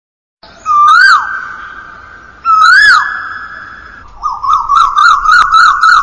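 Asian koel calling, as a ringtone: two loud whistled notes that each rise and then drop, then from about four seconds in a quick run of short rising notes, about four a second, with a lingering echo behind them.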